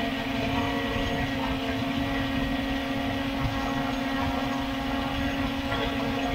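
Multirotor drone's motors and propellers humming steadily at a constant pitch while it hovers and drifts, with wind rumbling on the microphone underneath.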